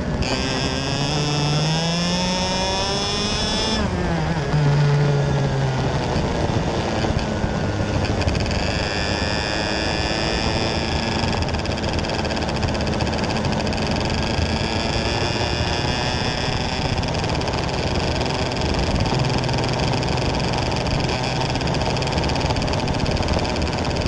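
A 125cc Leopard two-stroke kart engine at racing speed, heard onboard. Its pitch climbs for the first four seconds, drops sharply, then holds fairly steady with smaller rises and falls.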